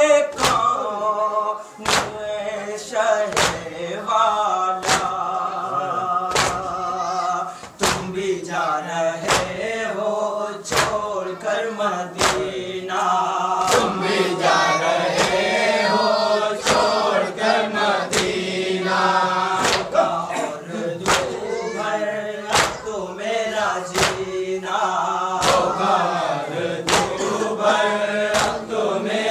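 Muharram noha: male voices chant a lament in chorus over a steady beat of sharp strokes, about one and a half strokes a second.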